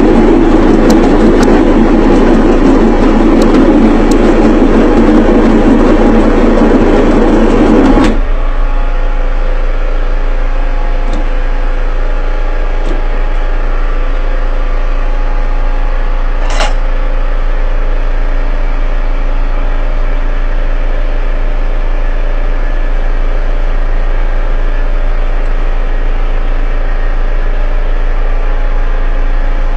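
Electric fufu pounding machine's motor running: a loud churning hum that drops suddenly about eight seconds in to a quieter, steady motor hum. A single sharp click comes partway through.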